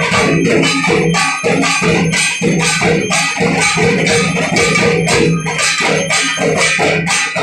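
Temple aarti percussion: drums and metal bells and cymbals struck in a fast, steady rhythm, with a continuous metallic ringing over the beat.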